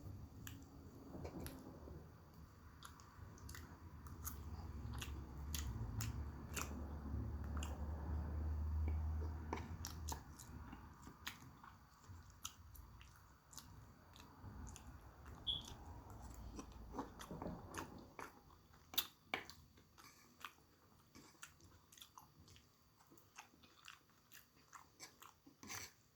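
A person chewing food close to the microphone, with many small wet mouth clicks and some crunching. A low rumble is heard from about four to ten seconds in.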